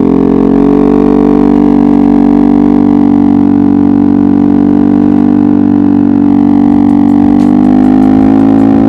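Yamaha XMAX scooter's single-cylinder engine pulling hard under open throttle, a loud, steady drone held at constant high revs.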